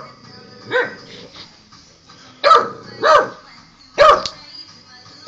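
Olde English Bulldogge puppy barking four times: a weaker bark about a second in, then three loud, short barks close together near the middle and end, each dropping in pitch.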